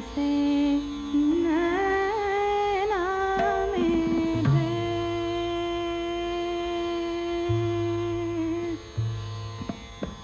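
Indian classical-style music: a melody of long held notes with sliding ornaments, joined about halfway by a low steady drone.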